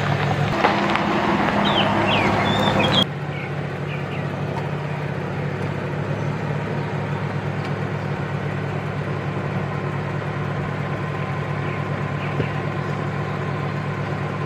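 A vehicle engine runs with a steady low hum. For the first three seconds it is joined by a higher hiss and short chirps, which cut off suddenly.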